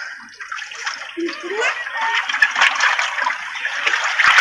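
Water splashing and streaming off a landing net as a large fish is hauled in from the water and laid on a wooden boat deck, with irregular knocks and slaps from the fish and net against the deck slats.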